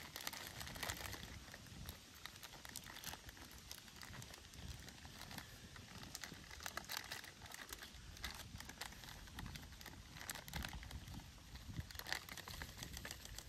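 Dry fishing groundbait being stirred and crumbled by hand, giving an irregular soft rustling and crackling that grows a little louder near the end.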